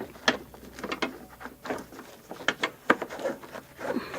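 Irregular light clicks and knocks of a plastic turn-signal bulb socket being handled and fitted back into the lamp housing.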